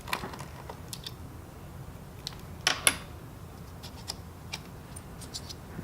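Small screwdriver unscrewing a screw that holds a laptop hard drive in place: light scattered clicks and taps of metal, with two sharper clicks about three seconds in.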